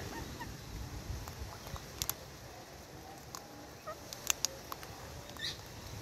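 Alexandrine and Indian ringneck parrots making small chirps and a few sharp clicks, with one short squawk near the end.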